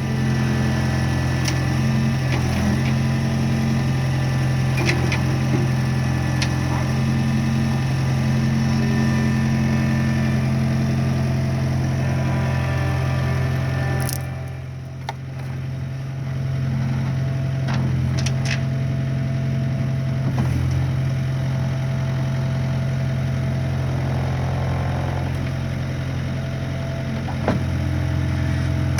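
Skid steer engine running steadily, dropping in level for a couple of seconds about halfway through before picking up again.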